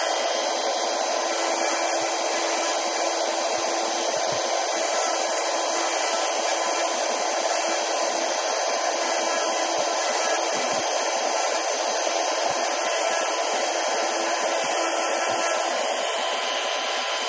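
Pantograph engraving machine's spindle motor running steadily as it cuts lettering into a silver buckle banner.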